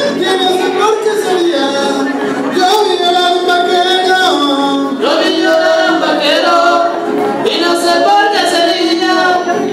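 Live son huasteco music played loudly over a sound system, with voices singing a melody that glides between long held notes.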